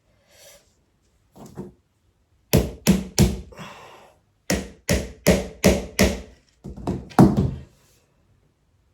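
Hammer striking flat-pack furniture parts: about ten sharp knocks in three quick runs, the last ones loudest.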